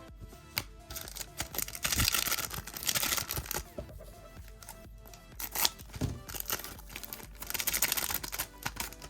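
Foil trading-card pack wrappers crinkling and tearing in two noisy stretches, about two seconds in and again near the end, with scattered clicks of cards being handled, over background music.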